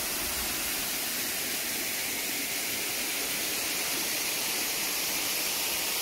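Small forest waterfall cascading over rocks into a pool: a steady rush of falling water.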